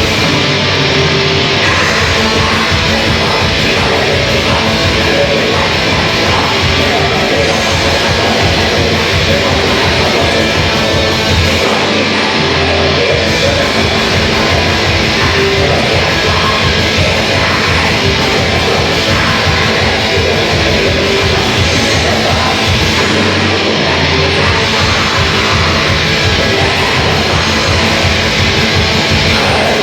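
Heavy metal band playing live: loud distorted electric guitars over dense, rapid drumming. The lowest end briefly drops out twice.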